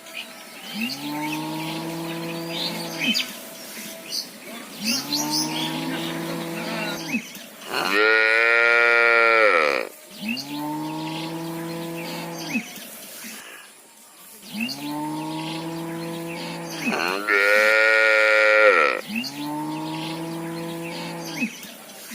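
Cattle mooing over and over. A deeper moo of about two seconds, falling at the end, comes back every four to five seconds, and two louder, higher-pitched moos come in between, one near the middle and one near the end.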